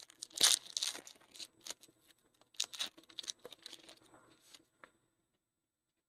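Foil trading-card pack wrapper being torn open and crinkled, a run of irregular crackles for about five seconds that stops near the end.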